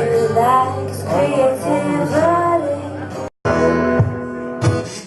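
Band music with a singing voice, which cuts off abruptly a little past three seconds in; after a split-second gap, different band music with regular drum hits begins.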